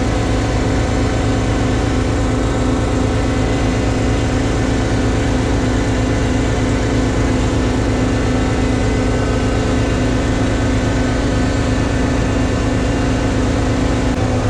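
Liebherr mobile crane's diesel engine running at a steady idle, with no change in speed.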